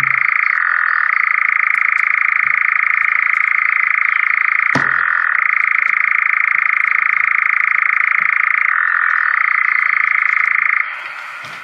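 Recorded European nightjar churring, played back through a speaker: one long, continuous, vibrating trill that briefly shifts pitch twice and stops abruptly shortly before the end. A single knock about five seconds in.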